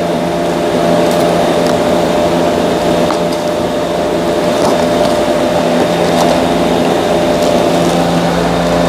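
Steady mechanical drone at a constant pitch, with a few faint clicks and taps of hand work.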